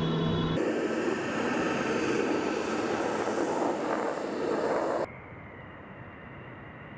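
Jet engines of a Tu-22M3 bomber, its twin NK-25 turbofans. It opens with a brief steady cockpit hum, then the loud jet noise of the bomber flying past. About five seconds in, this cuts to a much quieter, distant jet whine with a thin steady high tone as a bomber comes in on approach with its gear down.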